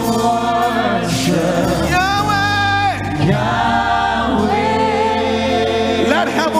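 Live gospel worship music: voices sing together with a choir, holding long notes over steady bass notes.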